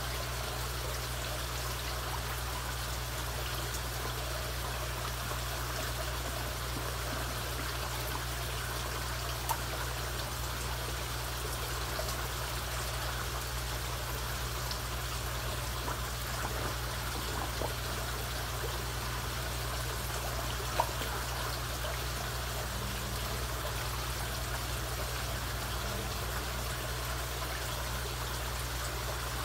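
Koi pond water running and trickling steadily, with a low steady hum underneath. Two brief sharp clicks stand out, about a third of the way in and again about two-thirds in.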